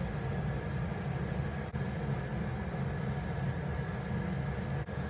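A steady low rumble that holds even and unchanging.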